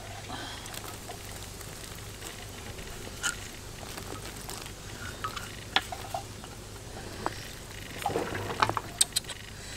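Soup simmering in a wok, bubbling with scattered small pops. Near the end a wooden spatula stirs it, with a quick run of knocks and scrapes against the pan.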